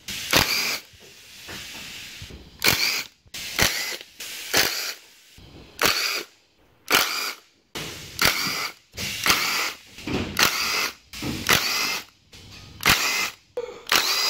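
Cordless power driver spinning in about a dozen short bursts, each winding up with a rising whine, as 10 mm bolts are run out one after another to take the cam covers off an engine.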